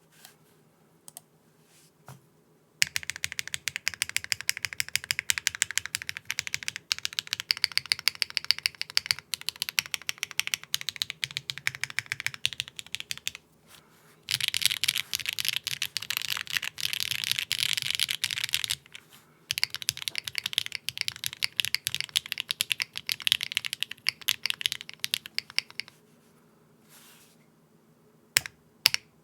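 TGR x Linworks Dolice mechanical keyboard with HMX Sunset Gleam linear switches on a UHMWPE plate with no foam, being typed on. A few single key presses come first, then rapid continuous typing starts about three seconds in, with two short pauses, and stops about 26 seconds in, followed by a few more single presses.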